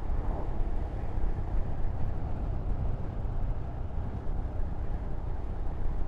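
Steady wind rush and road noise on a moving Royal Enfield Scram 411, with the low note of its single-cylinder engine underneath.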